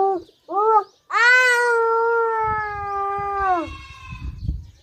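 Indian peafowl (peacock) calling loudly. It gives two short wailing notes, then one long drawn-out wail of about two and a half seconds that drops away at the end.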